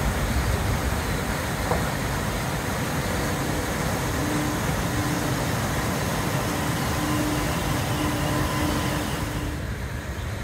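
Log flume water rushing and churning as it pours down the ride's chute into the pool, a steady noise. A faint tone comes and goes through the middle.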